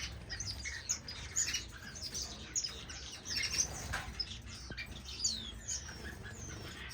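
A roomful of small cage finches chirping: many short, high chirps and quick falling tweets overlapping, with no pause.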